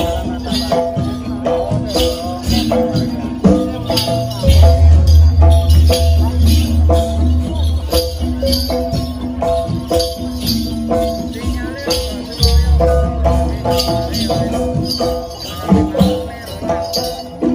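Live jaranan music from a Javanese gamelan-style ensemble: repeated pitched percussion notes over a steady beat of drum strokes and sharp percussion hits, with a deep low pulse that swells strongly about four seconds in and again near the end.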